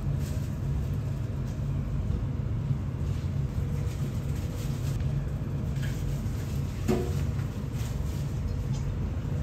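Steady low hum of restaurant room ambience, with one short clink about seven seconds in.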